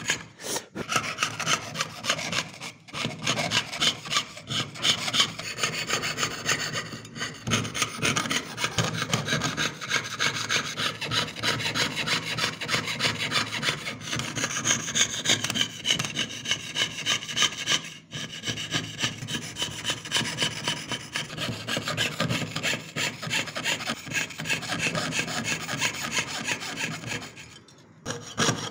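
Jeweler's saw cutting through a thin metal sheet with rapid, even back-and-forth strokes, piercing out the background of an engraved pendant design. There are a few brief pauses as the blade is repositioned.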